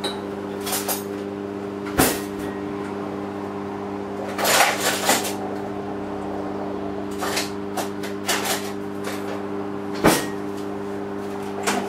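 Kitchen utensils and dishes clattering and knocking on a counter as food is dished up, with two sharp knocks about 2 and 10 seconds in and a burst of clatter around the middle. A steady low electric hum from a running kitchen appliance sits underneath.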